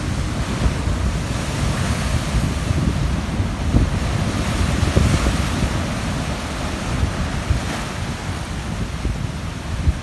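Heavy ocean surf breaking and washing over shore rocks, a continuous rushing swell that rises a little about halfway through, with wind buffeting the microphone.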